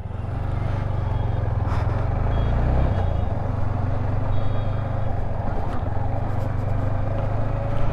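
Yamaha MT-15's freshly rebuilt 155 cc single-cylinder engine running steadily as the bike is ridden off, its note shifting a little about three seconds in.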